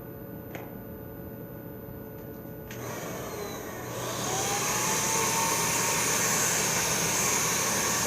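An electric blower motor switches on about three seconds in and spins up. Its whine rises and then holds steady over a loud, steady rush of air.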